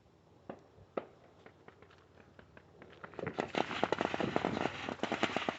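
Fireworks going off: a couple of single sharp pops, then from about three seconds in a rapid string of crackling pops, like a string of firecrackers or a crackling firework.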